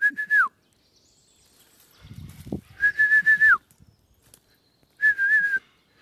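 A man whistling three times to call his dog back, each a single high held note that drops off at the end; the middle whistle is the longest and the last one wavers slightly. A short low rustle sounds between the first two whistles.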